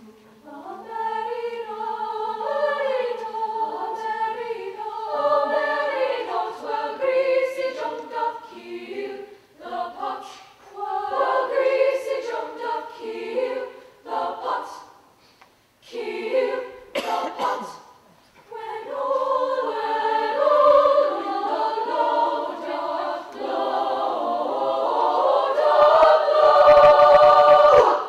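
Women's choir singing held chords, with a few short breaks between phrases around the middle. The singing swells to its loudest near the end and then stops sharply.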